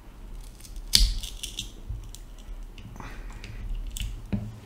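A plastic prying tool levers a glued lithium-polymer pouch battery up off its circuit board. There is a sharp click about a second in, then smaller clicks and scraping as the glue gives way.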